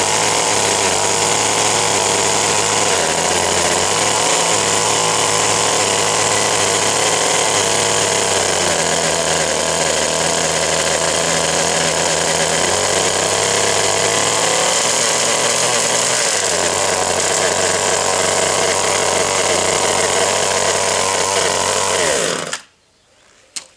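Small O&R 1 hp two-stroke engine of a 1958 Little Wonder hedge trimmer running steadily, its speed shifting up and down several times as the carburettor is adjusted. It stops abruptly near the end, followed by a single click.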